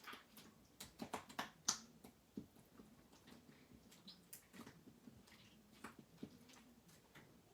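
Watery jiggly slime with crushed Orbeez in it being squeezed and worked by hand: an irregular run of soft, wet clicks and pops, thickest about a second in, sounding really watery.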